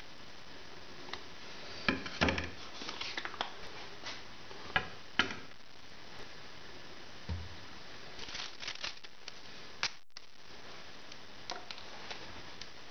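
Scattered light knocks, taps and clatters of small objects being handled, over a steady faint hiss.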